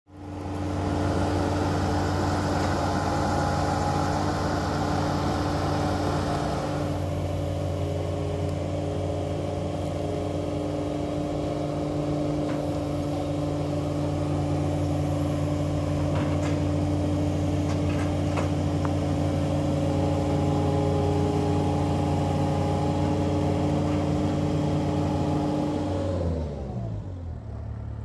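An engine running steadily at a constant speed, then winding down and stopping about two seconds before the end, its pitch sliding down as it slows.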